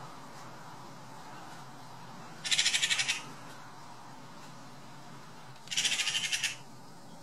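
Eurasian magpies chattering: two harsh, fast rattling bursts, about two and a half seconds in and again about three seconds later, each under a second long. It is the alarm chatter magpies give at a hawk.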